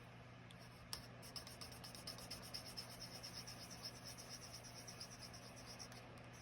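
Pen colouring in on paper: fast, even back-and-forth scribbling strokes, faint, after a single click about a second in.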